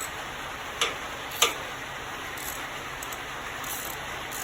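Two sharp metallic clicks about half a second apart from a socket wrench tightening the carburetor mounting nuts, over a steady background hiss.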